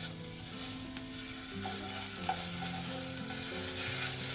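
Venison pieces sizzling as they fry in a hot pan, a steady hiss with small pops.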